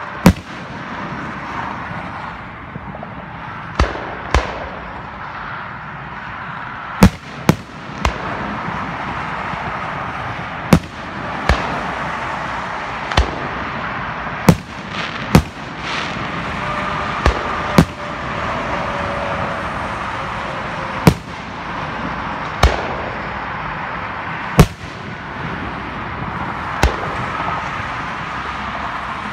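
Aerial firework shells bursting: about eighteen sharp booms at irregular intervals, from a fraction of a second to a few seconds apart, over steady background noise.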